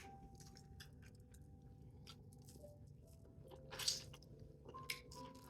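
Close-up eating sounds, faint chewing and crunching of seafood-boil shrimp, with one louder crunch about four seconds in. Underneath, a dog whines with faint, thin, drawn-out tones that shift in pitch.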